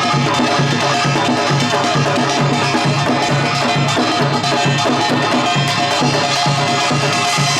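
Samul nori percussion ensemble playing a fast, steady rhythm. Kkwaenggwari and jing gongs clang and ring over a driving beat from the janggu and buk drums.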